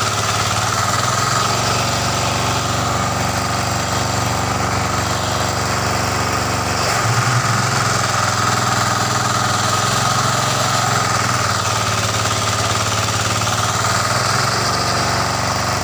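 Small stationary engine running steadily as it drives a centrifugal water pump, with water gushing and splashing from the pump's discharge pipe. The engine note shifts slightly about a second in, around the middle, and near the end, while the water flow drops to a trickle and then surges back.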